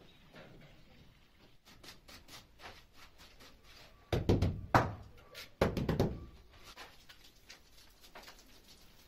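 Faint clicks and scraping, then two heavy thumps about a second and a half apart, with a sharp click between them, from a wooden screed batten being handled on a dry sand-and-cement floor bed.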